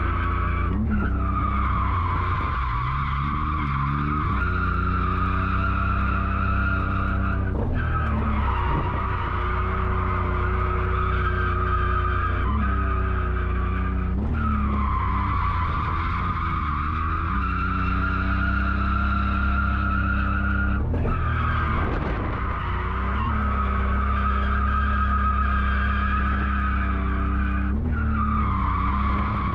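Inside the cabin of a BMW drift car: the engine is held at high revs while the rear tyres squeal through a figure-eight drift. The squeal and engine note dip and swing about every seven seconds as the car transitions from one turn into the next.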